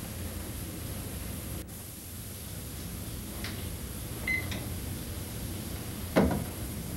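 Steady hum and hiss throughout, a short electronic beep from a cordless phone handset about four seconds in, then one loud knock near the end.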